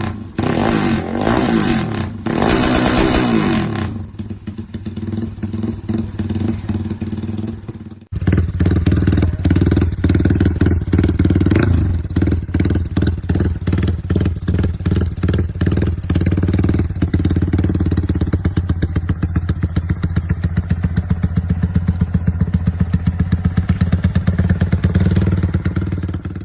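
Modified Yamaha Y15's single-cylinder four-stroke engine, fitted with a Comstar dry clutch, revved in a few short blips and then settling to a quieter idle. After a break about eight seconds in, it idles steadily with even firing pulses and a clattering from the open dry clutch.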